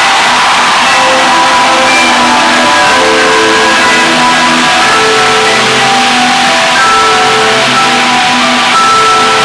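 Loud live rock-orchestra music, with an electric violin playing a melody of held notes over the band.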